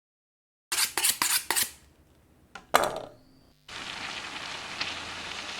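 A quick run of clinks and clatters of dishes and metal utensils, with one more clink a second or so later. Then, from a little under four seconds in, meat starts sizzling with a steady hiss.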